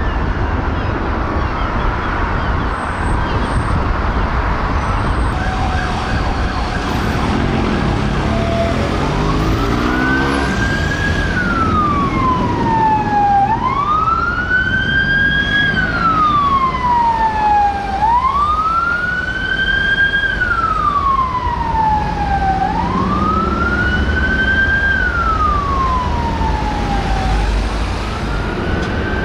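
Emergency-vehicle sirens. For the first few seconds a fire engine's and an ambulance's sirens sound together. Then, after an engine revs up, a police BMW X5's siren runs on a slow wail, rising quickly and falling more slowly about every four and a half seconds.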